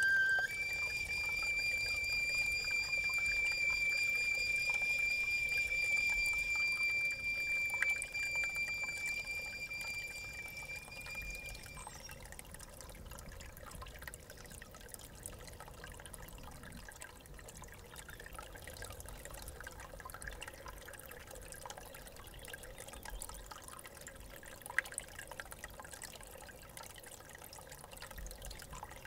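A swan-bone flute, a reconstruction of the Stone Age Geissenklösterle flute, steps up to a higher note about half a second in and holds it steadily for about eleven seconds before it stops. Water trickling from a spring runs beneath the note and carries on alone after it.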